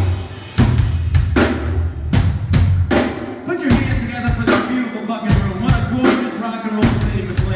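Live rock band playing loud through the stage amplification: a drum kit hitting about twice a second under electric guitars. The band comes back in with a big hit about half a second in, after a brief dip.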